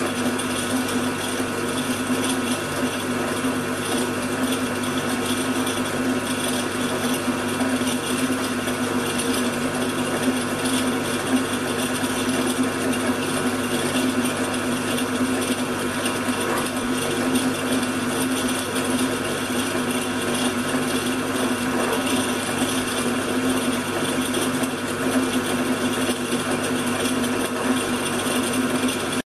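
Old Taiwanese drill press running steadily as its twist drill bores a tapping-size hole for a 5 mm grub screw into a mild steel block: an even motor hum that holds one pitch and cuts off suddenly at the end.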